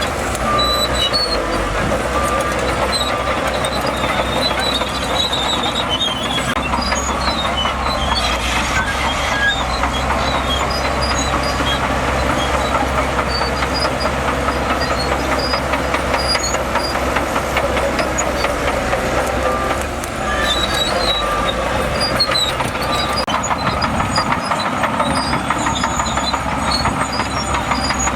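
Crawler bulldozer's diesel engine running under load with a steady, fast rattle of machinery, dipping briefly about 20 seconds in.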